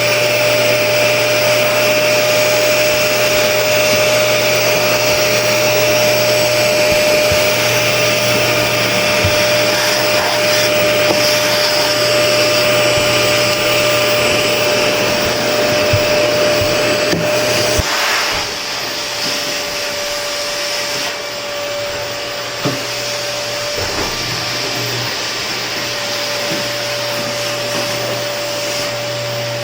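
Vacuum cleaner running continuously: a steady motor whine with a held tone over a rushing air noise. Its sound drops a little about two-thirds of the way through, with a few light knocks scattered through.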